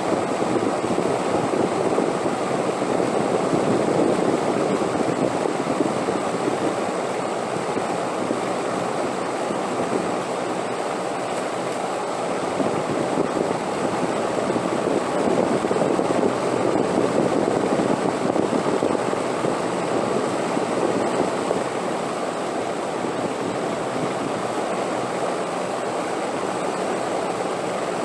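Steady rushing wind, swelling slightly twice and easing off near the end.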